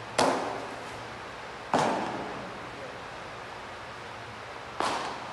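Three sharp smacks of a baseball popping into a catcher's mitt, each ringing on briefly in a hard-walled, echoing room.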